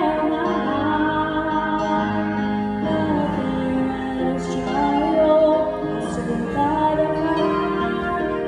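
A woman singing a slow gospel song into a microphone, holding long notes, with keyboard accompaniment.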